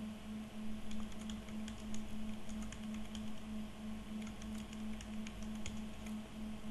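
Light, scattered clicks of a computer keyboard and mouse as a dimension is typed into CAD software, over a steady low hum.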